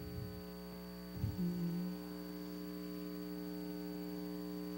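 Steady electrical mains hum, a low buzzing drone from the sound system, with a faint brief sound about a second and a half in.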